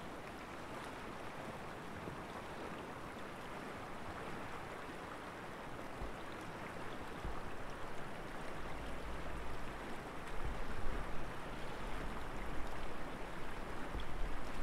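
Steady rushing outdoor ambience, an even hiss, with low rumbles of wind on the microphone that grow from about six seconds in.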